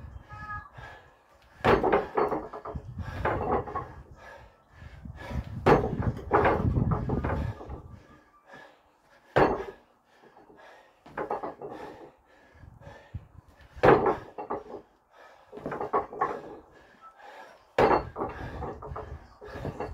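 Box jumps onto a stack of paving slabs: about five landing thuds of feet in trainers on the stone, roughly four seconds apart, with scuffing and shuffling between as he steps back down.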